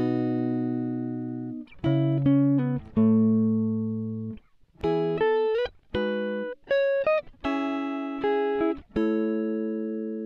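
Instrumental background music: plucked chords and single notes that start sharply and ring out, a new one about every second.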